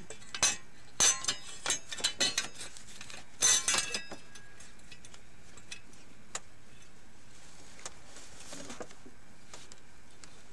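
Metal clinking and knocking from handling parts and tools in an engine bay: a quick run of sharp clinks in the first four seconds, then only a few faint ticks.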